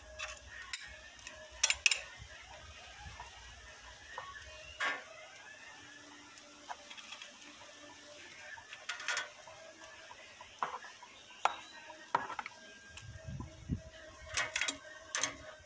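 Metal grill grate and utensils clinking and clanking as they are handled, in irregular sharp knocks a few seconds apart, the loudest about two seconds in.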